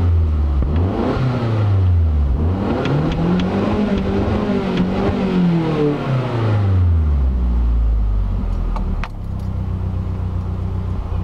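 Car engine revved twice, the second rev higher and longer, then dropping back to a steady low idle.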